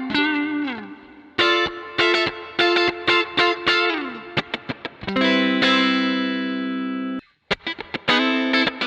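Fender Stratocaster electric guitar played with its tremolo arm: notes wobble and dip down in pitch with the bar, then a chord rings for about two seconds and is cut off suddenly, followed by quick fresh chords near the end.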